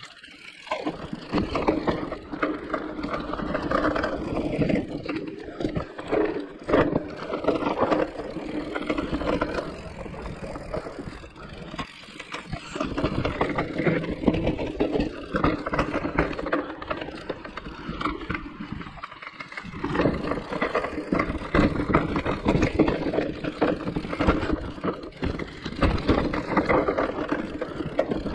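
Mountain bike riding down a rough trail: tyres rolling and the bike rattling over the ground in an uneven, continuous rumble, which drops away briefly about two-thirds of the way through.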